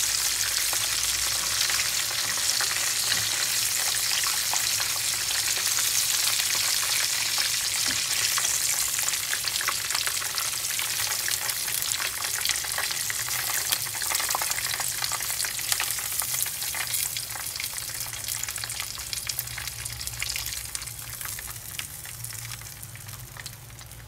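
Chicken wings frying in hot oil in a frying pan: a steady sizzle full of small popping crackles. It dies down over the last several seconds as the wings are lifted out and the oil is left bubbling on its own.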